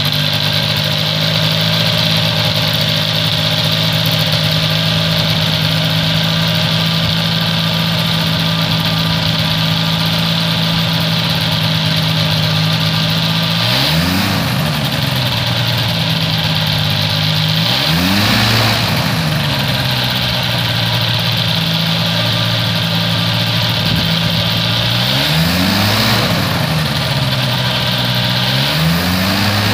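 Airborne Edge X microlight trike's engine idling steadily on a cold winter start, with four short throttle blips in the second half, each a quick rise and fall in pitch back to idle.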